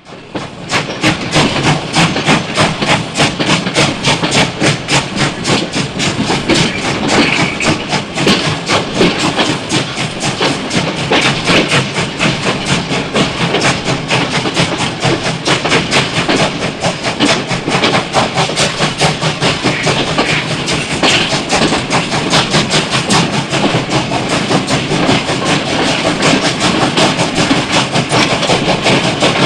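Steam train running at a steady pace, with a fast, even rhythmic beat that keeps going throughout.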